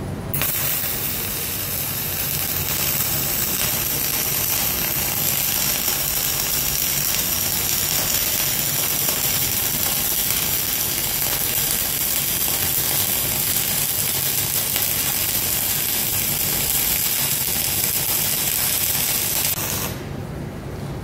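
Flux-cored wire-feed welding arc crackling steadily as a bead is run on mild steel plate with .052-inch flux-core wire at 25 volts. The arc strikes just after the start and cuts off about a second before the end.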